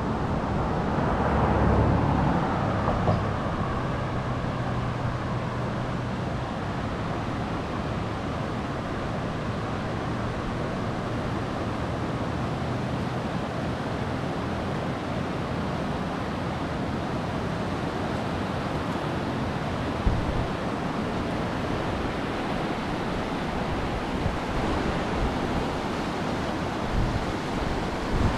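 Steady rushing of the Kymi river's rapids, with a car passing about two seconds in. There are a few brief low bumps later on.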